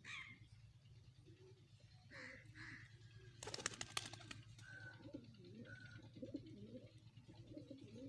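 Domestic pigeons cooing in low, wavering calls, with a quick clatter of wing claps about three and a half seconds in as one takes off.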